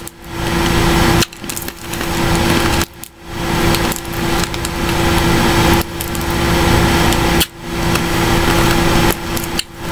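Close-up crunching and chewing of a hard, crunchy mango candy, in loud crackly stretches with brief pauses between bites, over a steady low hum.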